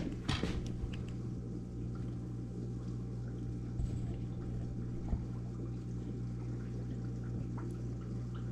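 Aquarium filter running: water pours and trickles into the tank over a steady low hum. A few brief sharper sounds come near the start and again about four and five seconds in.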